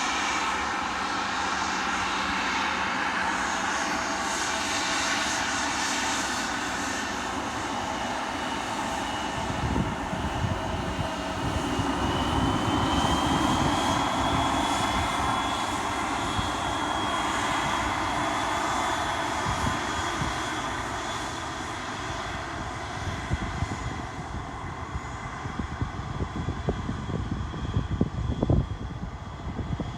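Fixed-wing airplane's engines running: a steady roar with a faint high whine that rises slightly about twelve seconds in. Low buffeting grows in the second half.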